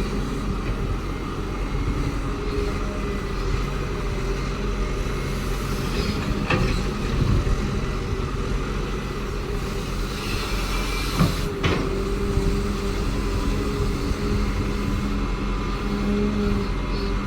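Caterpillar excavator's diesel engine running steadily while it works. A sharp knock comes about six seconds in, and a short hiss with a pair of knocks follows a little past the middle.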